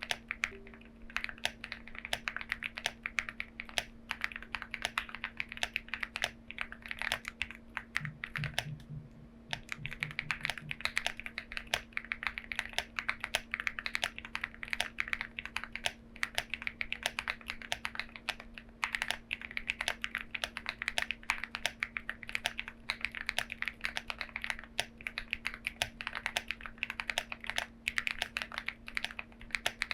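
Fast, steady typing on a Lucky65 mechanical keyboard with lubed Dopamine switches and pink pig keycaps: a dense run of keystroke clacks with a brief pause about nine seconds in.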